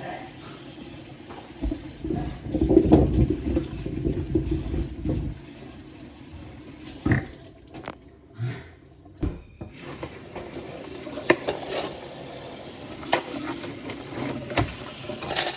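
Water running from a kitchen tap for a few seconds, followed by scattered clinks and knocks of kitchenware.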